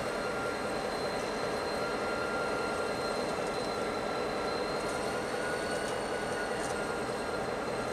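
BL class diesel-electric locomotive running as it shunts slowly, a steady engine sound with a thin, steady high-pitched whine over it and a few faint clicks about two-thirds of the way through.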